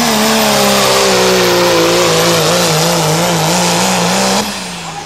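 Dodge Ram pickup's Cummins turbo-diesel engine at full throttle pulling a weight-transfer sled. Its pitch sinks over the first second or so as it labours under the load, then wavers up and down. The engine note cuts off abruptly about four seconds in as the driver lets off.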